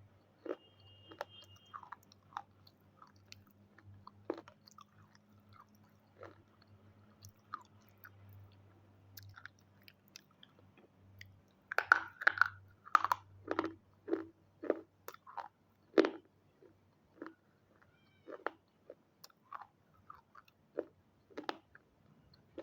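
Close-up biting and chewing of crunchy red triangle pieces: scattered crisp crunches, with a busy run of loud crunching bites about halfway through. A faint steady hum sits underneath.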